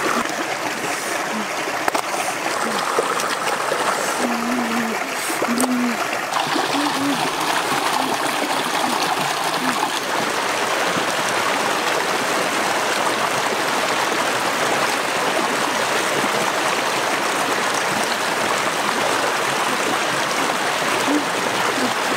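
Shallow rocky stream rushing steadily over stones, with hands splashing in the water during the first few seconds.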